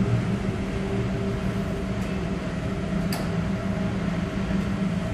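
Steady hum of the AIDAblu cruise ship's machinery and ventilation, several constant tones over a low rush, with a light click about two seconds in and a sharper one about three seconds in.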